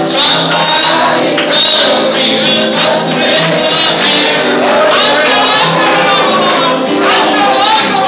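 Loud live gospel praise music: voices singing over sustained band or keyboard notes, with a tambourine jingling.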